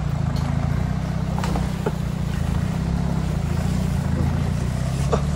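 Toyota Hilux Surf 4x4's engine running steadily at low revs as it crawls along a rough jungle dirt trail, heard from the vehicle's roof rack.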